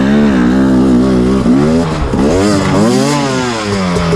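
Two-stroke single-cylinder engine of a 2019 KTM 250 EXC TPI enduro bike revving up and down in repeated quick surges of throttle, settling to a steadier, lower note near the end.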